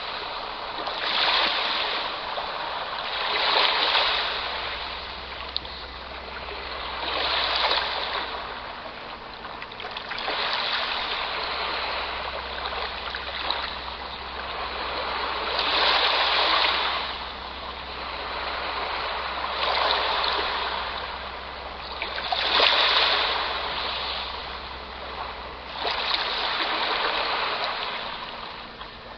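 Sea waves washing onto the shore, each wave swelling and fading every few seconds, over a faint low rumble.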